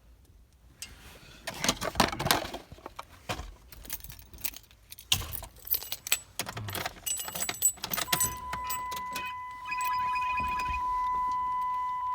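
A car key jangling and clicking on its ring as it is handled, a string of small metallic rattles. About eight seconds in, a steady high electronic warning tone from the 1999 Dodge Intrepid starts and keeps sounding.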